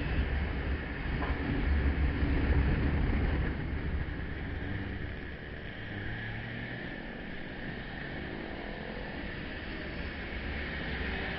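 A motor scooter riding through traffic: the engine runs under a rush of wind and road noise on the microphone. The rumble is heaviest over the first four seconds, then eases to a steadier, quieter rush.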